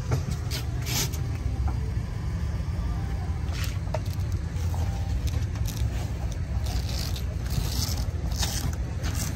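Steady low rumble of background noise, with a few short scrapes and rustles scattered through it.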